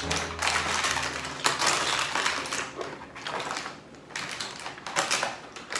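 Crackling and crinkling of aluminium foil and crab shells as a hand rummages through a foil-lined takeout tray of seafood boil, dense for the first three seconds, easing off, then another burst near the end.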